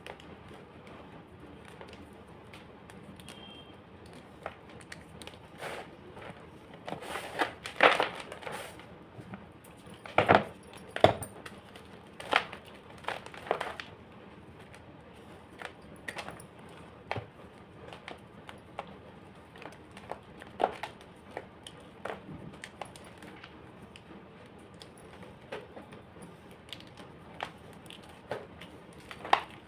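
Homemade gym chalk being crushed, with irregular dry crunches and crackles. They come thickest about a quarter to halfway through, then thin out to scattered single snaps.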